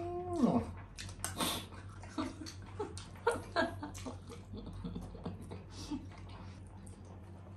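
Close-up mouth sounds of people eating rice: wet chewing and lip smacks with many short sharp clicks. A man's hummed "mmm" of enjoyment trails off in the first half second.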